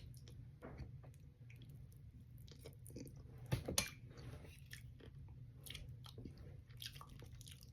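A person eating fried fish at the microphone: soft chewing and mouth sounds with scattered faint crunches and clicks. A sharper crackle comes about three and a half seconds in.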